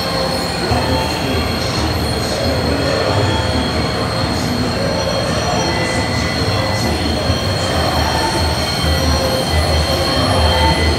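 Industrial plant machinery running: a constant high-pitched whine over a rough low rumble.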